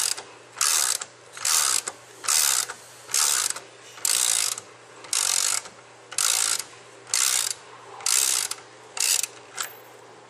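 Socket ratchet wrench clicking on its back-strokes, about one short rattle a second, as a 5/8 socket unscrews the fluid inlet fitting of a Lynx 100C spray gun.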